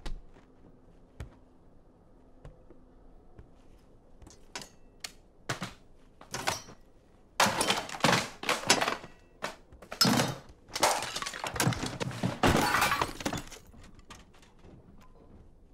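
Machete blows hacking into a wall. A few separate strikes come first, then a long run of loud blows breaking into it, which stops a couple of seconds before the end.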